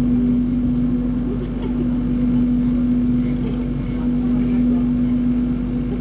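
Running noise inside a passenger train carriage: a steady low rumble with a constant hum over it.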